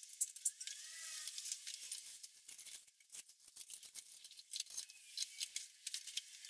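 Plastic wrap and cardboard packaging crinkling and rustling as a new capsule coffee machine is unpacked by hand: a quick, irregular string of light crackles.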